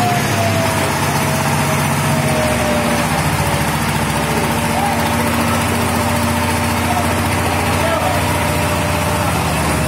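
Walk-behind power tiller's single-cylinder diesel engine running steadily as its rotary tines churn the soil.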